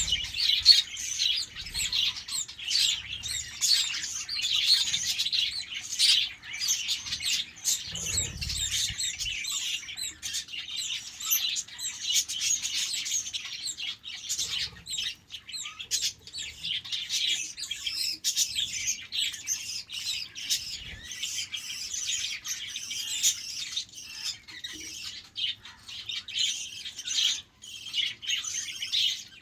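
A flock of budgerigars chirping and chattering continuously, many high-pitched calls overlapping, with a few soft low thumps or wing flutters.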